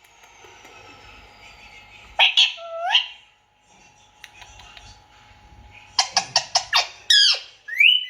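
Indian ringneck parrot calling: two or three loud sweeping screeches about two seconds in, then a quick run of short, sharp squawks and a falling screech near the end.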